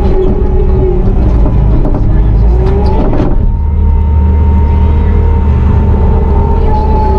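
Bobcat T650 compact track loader's diesel engine running hard in the cab, with a steady whine over the low rumble while pushing a load of clay. About three seconds in the pitch rises and a short clatter cuts in before it settles again.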